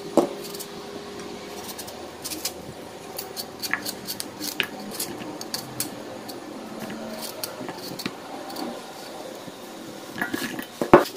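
A knife cutting a firm vegetable held in the hand, with chunks dropping into a stainless steel bowl: a string of small sharp clicks and snaps. A louder knock against the bowl comes just after the start and again near the end.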